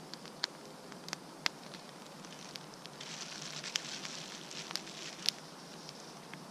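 Wood campfire crackling, with a few sharp pops scattered through and a hiss swelling for a couple of seconds around the middle.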